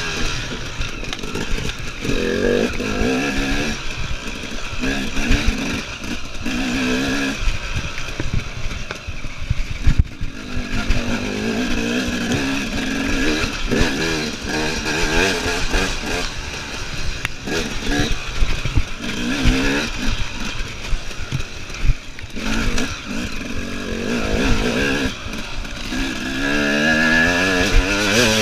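KTM EXC enduro motorcycle engine revving up and down again and again as it is ridden hard round the course, with short drops in between and frequent knocks and bumps.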